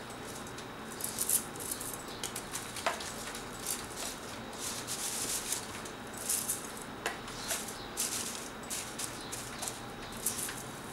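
Thin wooden skewer sticks clicking and rattling lightly against one another as they are laid down on crepe paper, with soft papery rustles and a few sharper clicks.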